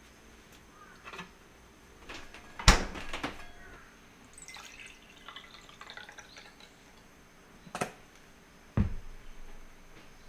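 Household items being handled: a few sharp knocks and light clattering, the loudest knock about two and a half seconds in and a duller thump near the end.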